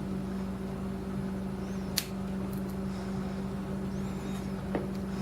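Steady low hum throughout, with one sharp click about two seconds in and a fainter tick near the end, from a lock pick working the pins of a large Lockwood 270S70 padlock.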